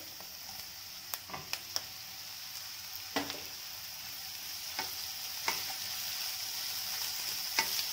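Sliced onions and chopped tomatoes frying in oil and butter in a kadai, a steady sizzle. Scattered sharp knocks and scrapes come as the tomatoes go in and the wooden spatula stirs them through.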